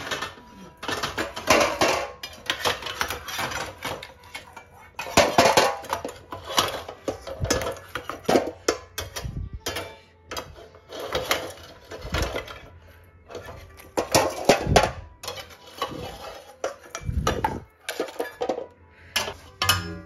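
Stainless steel tongs, steamer rack and bowls clattering and clinking in irregular bursts, with steamed eggs knocking against the metal.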